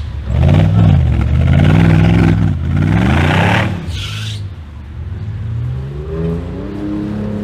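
Mercedes-Benz G-Class off-roader's engine revving up and down several times as it drives over rough ground, with a short sharper burst about four seconds in, then climbing in revs again near the end.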